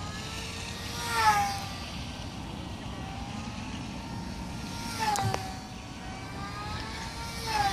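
Electric motor and propeller whine of a Nanoplanes Babyshark RC plane on a 4S battery, flying fast passes. Its pitch swells and then drops sharply as it goes by, three times: about a second in, around five seconds, and near the end.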